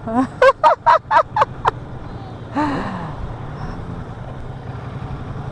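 A rider laughing in a quick run of short bursts, then a breathy sigh about two and a half seconds in, over the steady low drone of the motorcycle and wind.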